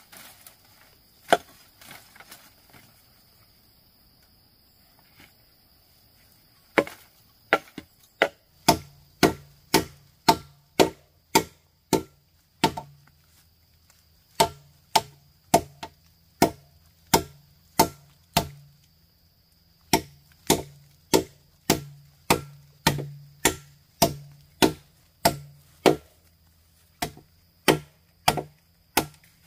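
A blade chopping wood: a few scattered strokes at first, then steady strokes about one and a half a second, in runs with short pauses. Each stroke leaves a brief low, hollow ring.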